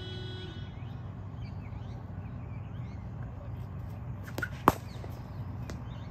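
A cricket bat striking the ball once with a single sharp crack, a fainter knock just before it.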